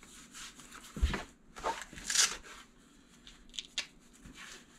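Fabric strap of a running phone armband rustling and rasping as it is looped and pulled tight around a forearm, with a soft thump about a second in and scratchy Velcro-like rasps about two seconds in.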